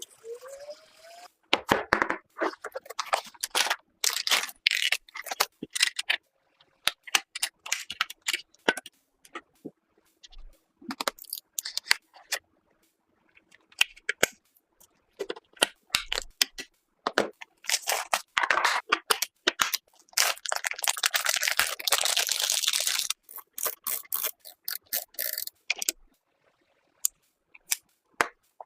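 Hardware being handled and fitted during a PC build: a run of separate clicks, taps and knocks with short pauses between them, and a longer scraping rustle a little past the middle.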